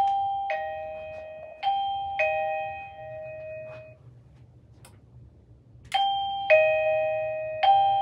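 Safeguard Supply ERA-DCRX wireless doorbell receiver chiming a two-note ding-dong, high note then low, played twice in a row. The chime starts again about six seconds in, each note ringing and slowly fading. The chime signals that its ERA-UTX transmitter has been triggered.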